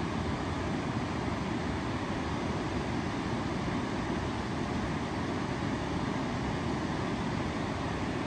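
Ocean surf breaking on a sandy beach, a steady low rumble with no single wave crash standing out.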